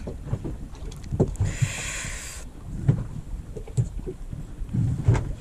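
Choppy sea water slapping and knocking against the hull of a small open fishing boat, with wind on the microphone. A brief rushing hiss comes about one and a half seconds in and lasts about a second.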